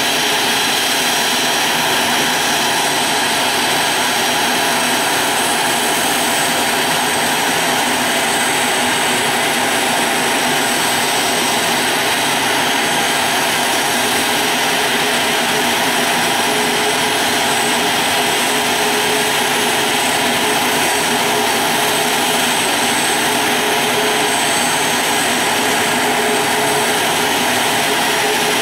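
A Boeing 737-500's CFM56 turbofan jet engines running steadily: a loud, even rush with a high whine over it.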